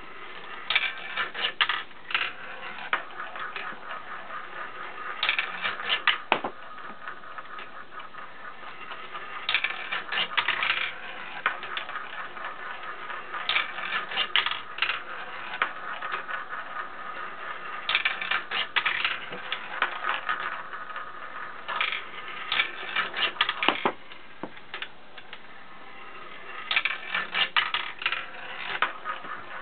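Glass marbles running down a wooden marble run one after another, each making a burst of rapid rattling clicks as it rolls along the wooden tracks and clacks into the marbles lined up on the base. A new burst comes about every four seconds, about seven in all.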